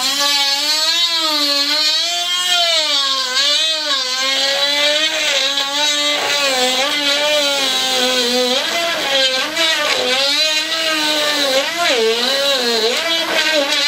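Dremel rotary tool running with a small drill bit, drilling out a Robart hinge in a wooden aileron. It is a steady motor whine whose pitch sags and recovers again and again as the bit bites into the hinge, dipping most in the second half.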